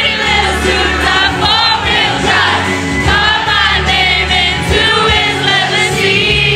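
Loud music with a steady bass and several voices singing.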